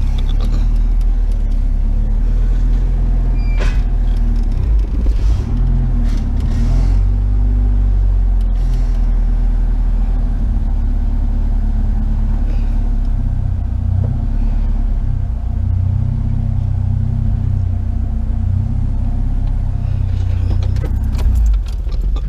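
Truck engine running with a steady low rumble, heard from the cab while the truck is manoeuvred; the rumble drops away abruptly near the end.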